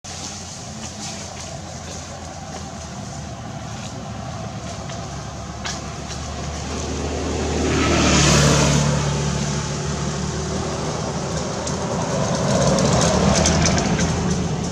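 Motor vehicle engine running steadily with a low hum, growing louder about eight seconds in and again near the end, as vehicles pass close by.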